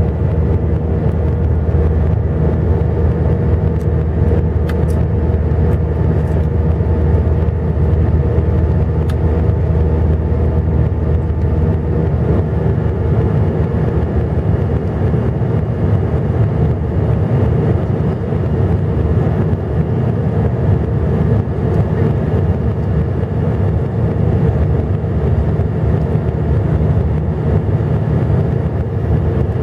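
Airbus A320's IAE V2500 turbofan heard inside the cabin from a seat beside the engine during the initial climb after takeoff. It is a steady, even drone with a few constant tones running over it.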